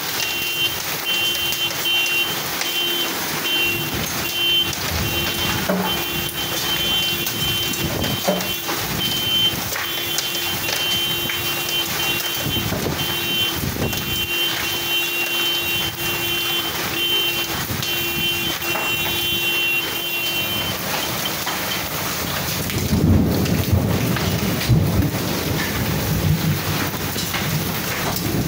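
Heavy hail and rain pouring down in a steady hiss. A repeating high electronic beep sounds over it and stops about 21 seconds in; near the end a low rumble of thunder comes in.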